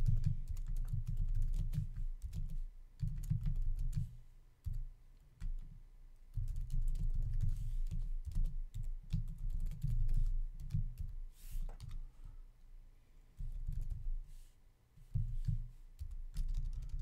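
Typing on a computer keyboard: quick runs of keystrokes, with short pauses about five seconds in and again near fourteen seconds.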